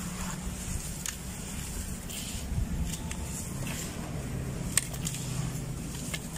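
Hands crumbling gritty sand-cement clumps and letting them fall back into a plastic tub: soft crunching and pattering with a few sharp clicks, over a low steady hum.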